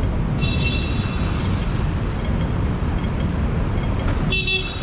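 Steady rumble of city street traffic, with two short, high-pitched ringing tones: one about half a second in and one near the end.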